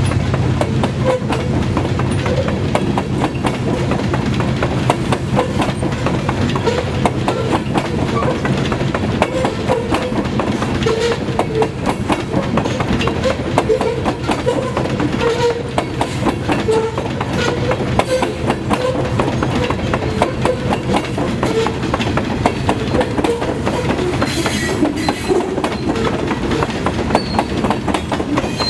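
Covered hopper cars of a CSX grain train rolling past, their wheels clicking steadily over the track joints above a continuous rumble.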